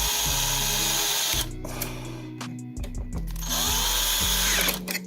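Power drill run in two bursts, the first about two seconds long and the second shorter, each whine spinning up and winding down, over quiet background music.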